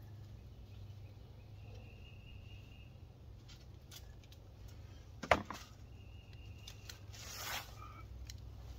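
Small plastic nursery pots and tomato seedlings being handled: mostly quiet over a steady low hum, with one sharp click a little past the middle and a brief rustle near the end.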